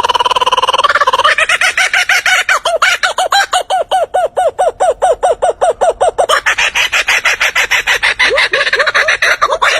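Lyrebird calling in mimicry: a held, pitched tone at first, then a fast even run of short repeated chirps, about six a second, then a denser string of calls with a few falling swoops near the end.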